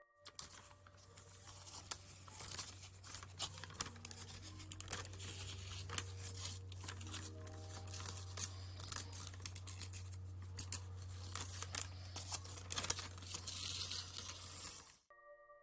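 Stiff card or paper crumpled and flexed in quick, irregular movements: a dense crackle of sharp clicks made as a foley imitation of a crackling fire. A low steady hum runs underneath, and the whole sound cuts off suddenly near the end.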